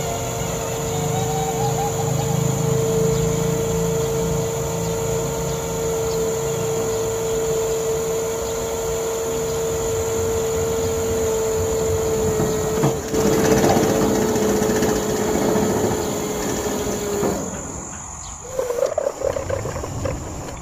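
Electric motor and gearbox of a homemade RC model crane whining steadily as its telescopic boom extends, with a click about two-thirds of the way through; the whine cuts off abruptly, and a shorter wavering whine follows near the end.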